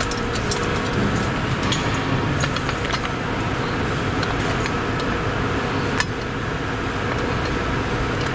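Steady hum of plant-room machinery, with a few scattered metallic clinks from a manual chain block's hook and chain as it is hung on a lifting sling.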